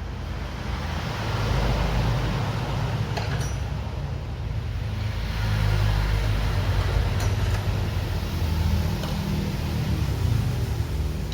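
Motor vehicle engine noise: a steady low rumble that swells and eases a few times.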